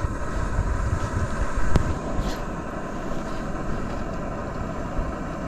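Small backpacking stove burner running at a steady, even roar while heating water. A single sharp click comes a little under two seconds in.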